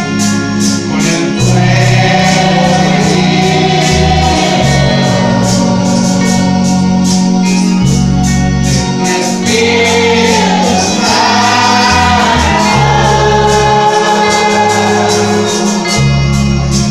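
Live gospel band music played loud through a PA system: singing into a microphone over a bass line and a steady drum beat.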